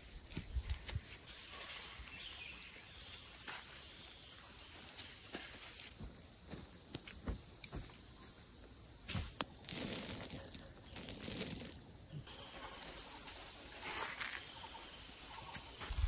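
Outdoor rural ambience with a steady, high-pitched insect drone. The drone fades out after the first few seconds and returns near the end. Scattered light clicks and a short patch of rustling come in the middle.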